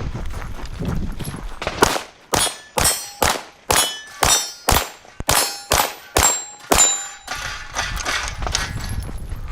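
Rapid pistol fire at steel targets: about a dozen shots in five seconds, each with a ringing clang from a steel plate being hit. The shooting stops for the last couple of seconds.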